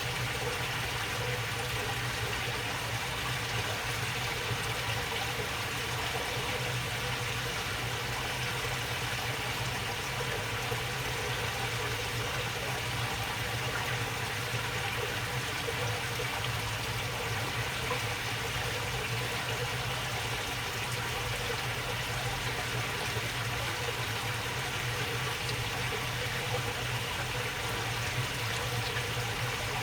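Water flowing along a small channel: a steady, continuous babbling that doesn't change.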